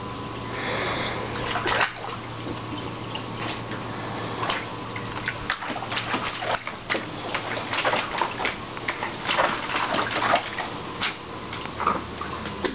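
Water splashing and sloshing in a plastic shell paddling pool as a Staffordshire bull terrier plays in it: a run of irregular splashes that comes thicker and faster from a few seconds in.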